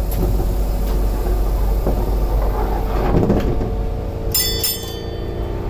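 A Toden Arakawa Line tram's passenger door sliding shut, heard from inside the car over a steady electrical hum, with two short high-pitched beeps a little after four seconds in.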